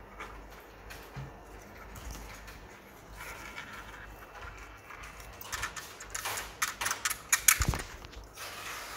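Handling noise from a plastic waist fan as a lanyard is fitted to it: quiet at first, then a run of small plastic clicks and rattles in the second half, with a sharper knock near the end.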